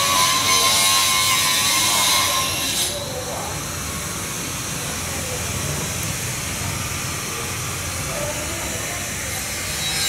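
A loud steady hiss with a wavering hum in it stops abruptly about three seconds in. A quieter steady hum and hiss follows.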